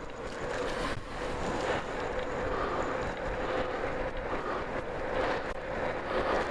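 Wind noise on the microphone and tyre rolling noise from an electric bike being ridden, steady throughout, with a faint steady hum underneath.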